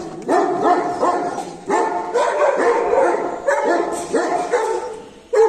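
Pakistani Bully dog barking repeatedly, a quick string of loud barks at about two a second.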